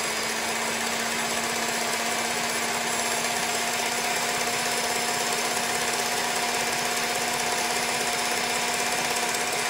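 KitchenAid stand mixer running steadily, its wire whisk beating warmed eggs and sugar in a stainless steel bowl to whip them up for a genoise sponge. The motor hum and whine holds one even pitch and level.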